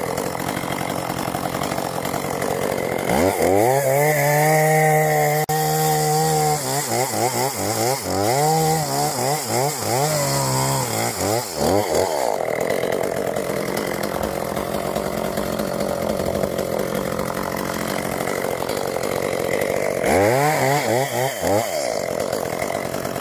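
Chainsaw running, revved up about three seconds in and held high, then revved up and down repeatedly for several seconds before settling back. It is revved up again briefly near the end.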